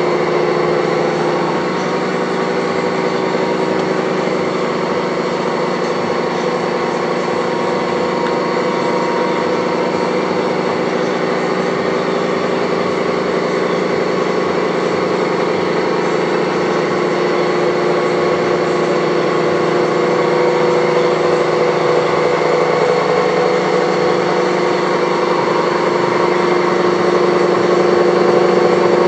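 Horizontal boring mill running steadily, its motor and spindle drive giving a continuous machine drone with several fixed tones, a little louder toward the end.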